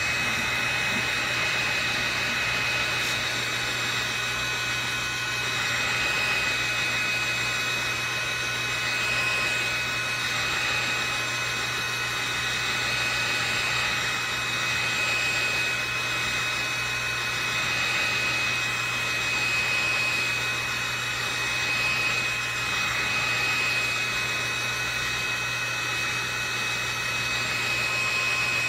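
Heat gun running steadily, blowing hot air with a constant high whine over the rush of air, used to remelt the frosted top of a soy candle.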